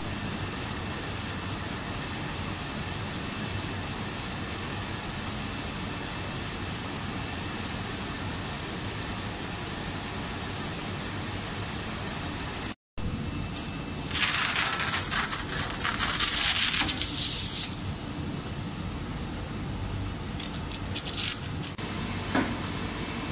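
Adhesive tape slitting and rewinding machine and its coating line running with a steady mechanical noise. In the second half there is a loud hiss of about three seconds, followed by a few clicks and one knock as the rolls are handled.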